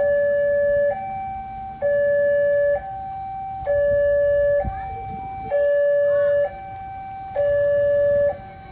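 Railway level-crossing warning alarm sounding a steady two-tone hi-lo signal, switching between a lower and a higher tone about every second, the lower tone louder. There is a brief low rumble about halfway through.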